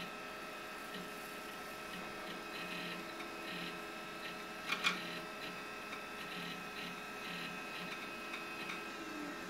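Power Macintosh 7600's failing SCSI hard drive clicking in short, irregular bursts over the steady hum of the running machine, with one sharper click about five seconds in. It clicks a bit and then doesn't get too far: a sad-sounding drive that will not boot.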